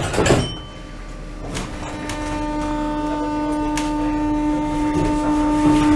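Paris Métro Line 7 train's doors shutting with a thud, then the train pulling away: a steady motor whine over a low hum that grows gradually louder as it gathers speed.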